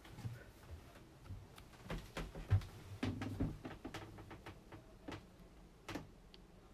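Scattered light clicks and knocks with a few dull thumps, the loudest about two and a half seconds in: someone moving about and handling things in a wooden boat cabin.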